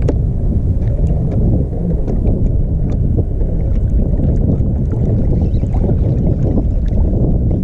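Wind buffeting the microphone in a steady low rumble, with faint scattered clicks over it.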